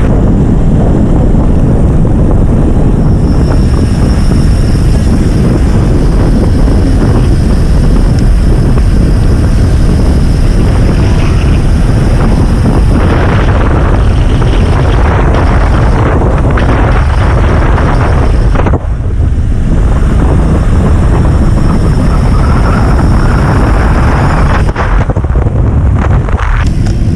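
Heavy wind buffeting on the microphone of a camera carried on a road bike riding at speed: a loud, steady low rumble that eases briefly twice in the latter part.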